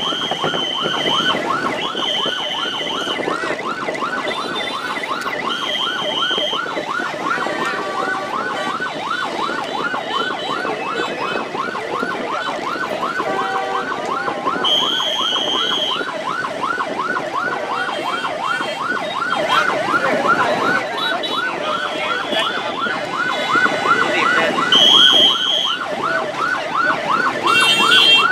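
A siren warbling rapidly up and down, about three sweeps a second, without a break. A few short, high, steady tones about a second long sound over it now and then.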